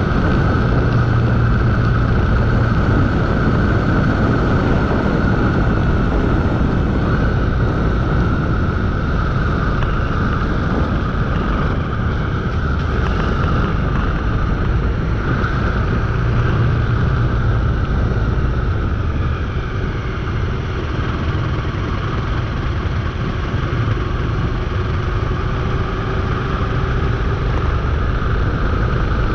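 Motorcycle engine running steadily at cruising speed, with wind noise on the microphone; the sound eases slightly about two-thirds of the way through.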